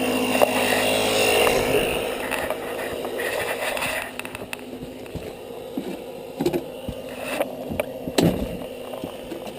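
A motor running steadily with a hissing sound over it for the first two seconds. After that it is quieter, with a few scattered knocks and clicks of tire and rim work.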